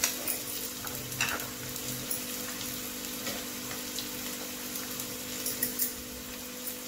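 Chopped onion sizzling in hot oil in a frying pan: a steady hiss with scattered small crackles, over a faint steady hum.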